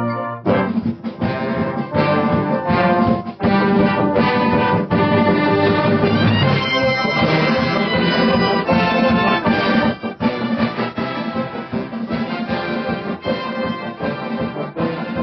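Brass band playing: a held chord gives way about half a second in to the full band coming in loud, with rapid, sharply accented chords and runs.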